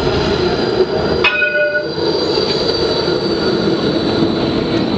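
A low-floor tram pulling in to a stop: a steady rumble of the tram on its rails, with a high wheel squeal that sets in a little over a second in and holds as it comes alongside.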